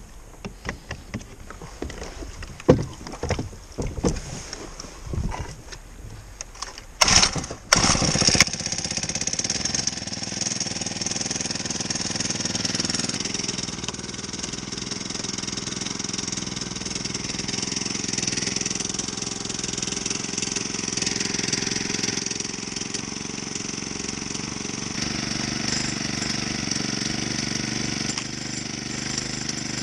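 A few knocks and clatters, then the kayak's Honda GX35 single-cylinder four-stroke motor starts about eight seconds in and runs steadily.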